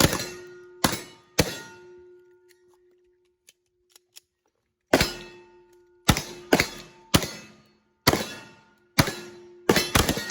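Pistol shots in an irregular string, each impact followed by a ringing metallic tone as steel targets are hit. Three shots come quickly, then a pause of about three seconds, then about seven more in quicker succession.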